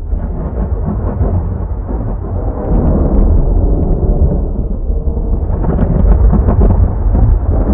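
Thunder rumbling in a long, continuous roll. It swells with sharp crackles about five and a half seconds in and begins to die away at the very end.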